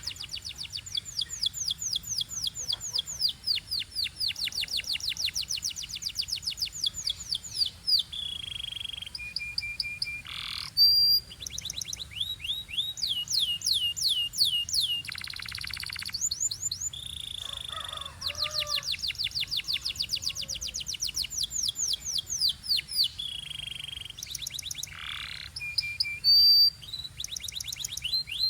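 Belgian canary singing: long rapid trills of quickly repeated high notes, broken by short held whistles, with two brief louder calls, one about eleven seconds in and one near the end.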